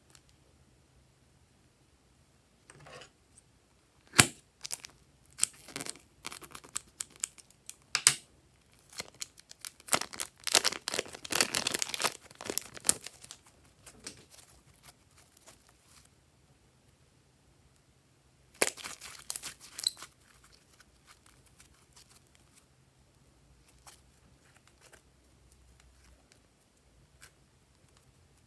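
Hands squeezing and handling glossy slime and its plastic piping bags, with sticky crackling and popping. The sound comes in two spells: a long one from about four seconds in, and a shorter one about two-thirds of the way through.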